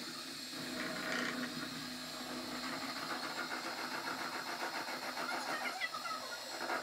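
Electric hand mixer running steadily, its beaters whipping egg whites in a stainless steel bowl toward stiff peaks for royal icing, with a fast light rattle.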